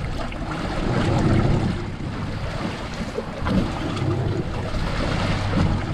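Open-sea water sloshing and slapping against a small boat's hull, with wind buffeting the microphone and a steady low hum underneath.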